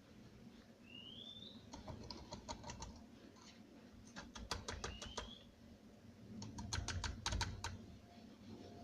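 Light clicks and taps in three quick clusters, like small hard objects being handled, with a short rising chirp about a second in and again about five seconds in.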